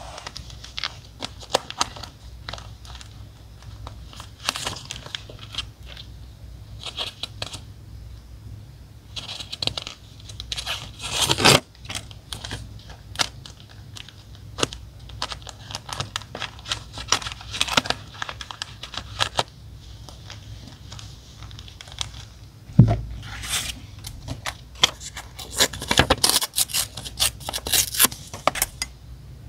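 Paper, stickers and tape being handled close up while decorating a journal: tearing, peeling, rustling and small taps in irregular short bursts, with a few louder knocks.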